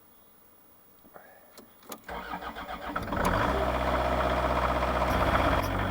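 Kubota KH-90 mini excavator's diesel engine, preheated with its glow plugs, cranking over on the starter for about a second and catching about three seconds in, then running steadily. A few light clicks come before the cranking.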